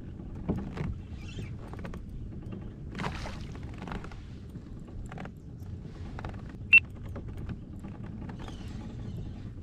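Scattered small clicks and knocks over a steady low rumble. About two-thirds of the way through comes one short, sharp high-pitched tone, the loudest sound heard.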